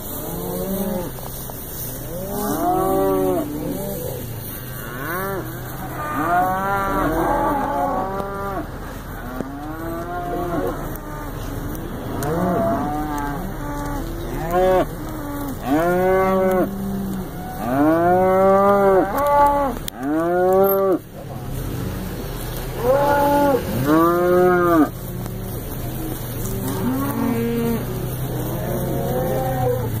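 A herd of beef cattle mooing, many calls from different animals overlapping one after another, loudest in the middle stretch.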